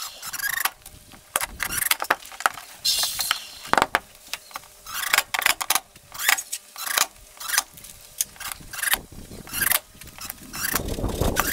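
Cordless impact driver driving screws into carpeted plywood hatch lids in short bursts, with clicks and knocks of screws and hand handling between.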